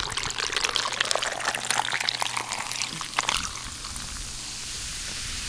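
Ice cubes sliding and clinking in a plastic cup as it is tipped up to drink, a quick run of irregular clicks. From about three seconds in, a steady hiss follows.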